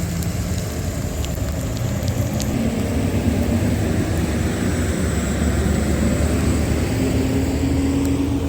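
A motor vehicle's engine runs close by with a steady hum whose pitch shifts slowly, over general street noise.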